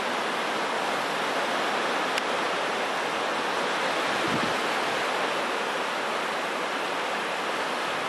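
Ocean surf: a steady, even rush of breaking waves and shallow water washing over sand.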